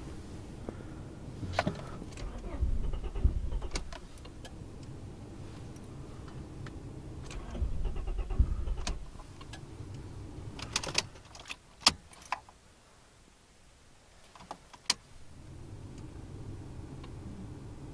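Turbocharged Honda Prelude engine cranking on the starter without catching, in two bursts of about two seconds each, followed by a few sharp clicks. The no-start is a sign of a distributor fault.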